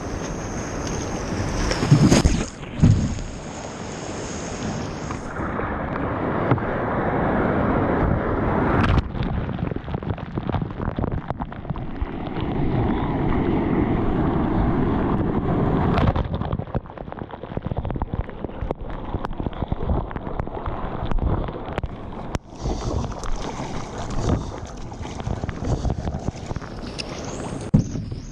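Surf breaking and water rushing around a kayak being paddled out through the waves, with sharp splashes and wind buffeting the microphone.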